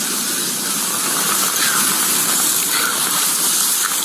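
Steady, loud rushing hiss that runs on without a break.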